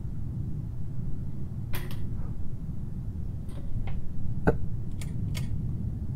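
Low, steady droning hum of a horror film's background soundtrack, with a few short clicks or creaks scattered through it.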